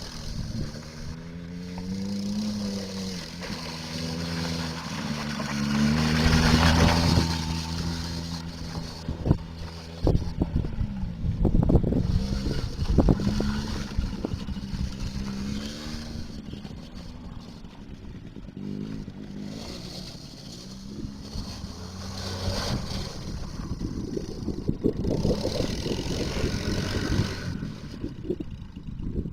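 A small ATV engine running, its pitch rising and falling as the throttle opens and eases off, loudest about six to seven seconds in.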